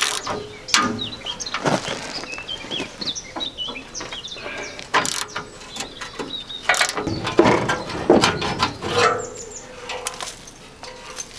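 Ratchet spanner clicking on a rusty bumper bolt, then metal clanks and scrapes as the Land Rover's steel front bumper is worked loose, with a brief ringing clank near the end. Small birds chirp in the background.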